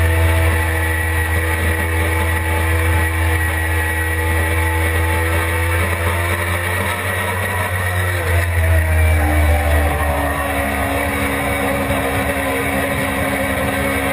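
Suzuki GSX-R600 inline-four sportbike engine running hard, recorded onboard with heavy wind rumble. The engine note drops about halfway through, rises briefly, then holds at a lower pitch as the bike slows into a corner.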